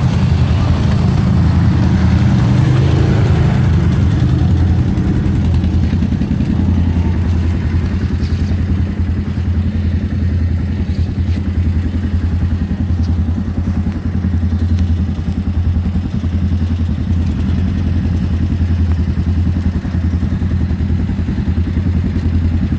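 ATV engine running steadily, with some clattering.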